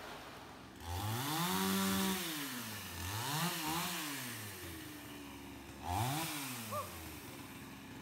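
Two-stroke chainsaw revved up and down three times without cutting. The first run starts about a second in and is held high for about a second. Two shorter blips follow, about three and a half and six seconds in, each falling back toward idle.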